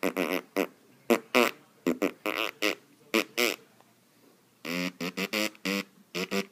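A person blowing raspberries, making mouth fart noises in a rapid series of short bursts, with a pause of about a second around four seconds in.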